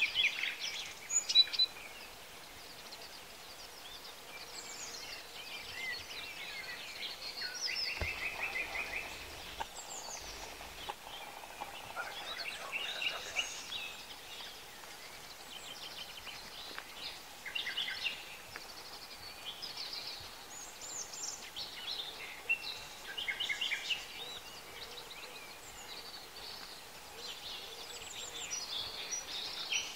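Several songbirds singing, many short high chirps and trills overlapping, over a faint outdoor background hiss.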